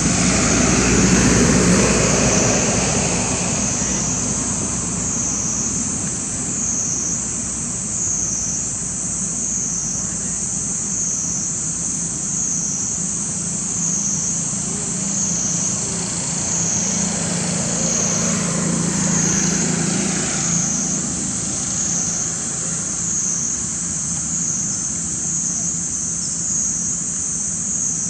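High-pitched insect chorus, swelling and fading about once a second, over a low distant engine hum that is strongest around the middle of the stretch and eases off about two-thirds in.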